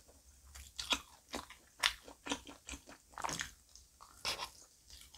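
Biting into and chewing a piece of 우유튀김 (Korean fried milk, a battered and deep-fried milk custard): a string of irregular crisp crunches, a few a second.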